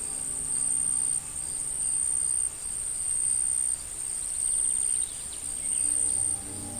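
Insects trilling in a steady, high-pitched drone that swells and eases about every second. Soft music fades out early and returns near the end, with a few faint bird chirps in between.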